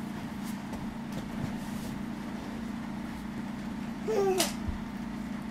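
Steady low room hum with a few faint taps from small toy figures being handled, and one short vocal sound with a falling pitch about four seconds in.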